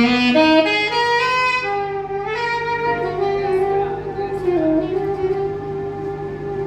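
Music: a solo melody line of long held notes that climbs in steps over the first two seconds, then slides between pitches and settles on a sustained note, over a steady low tone.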